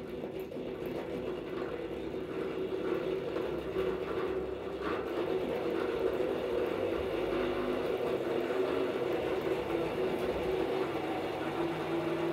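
Electric motor of a Quarti radial honey extractor spinning the reel of honey frames: a steady whir that grows louder over the first couple of seconds as the reel gathers speed, then holds even.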